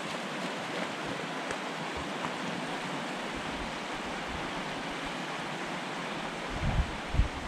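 Shallow mountain river rushing over rocks, a steady, even rush of water. Near the end, low irregular buffeting from wind on the microphone comes in over it.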